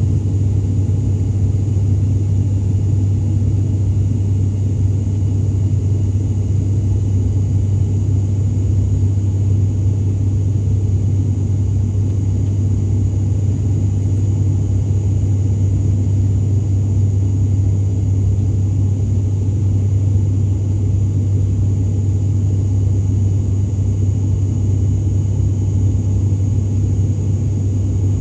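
Cabin drone of an ATR 72-600's Pratt & Whitney PW127 turboprops and propellers in climb after take-off, heard from a window seat beside the propeller. It is a loud, steady low hum with a faint high whine above it and no change through the climb.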